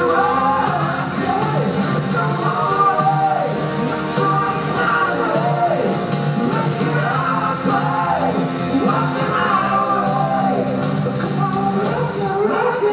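Live hard rock band playing loud, with electric guitars and drums under sung vocal lines, heard from the arena floor.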